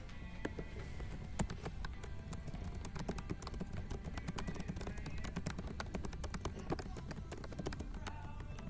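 Typing on a laptop keyboard: quick, irregular key clicks that come thicker from about three seconds in.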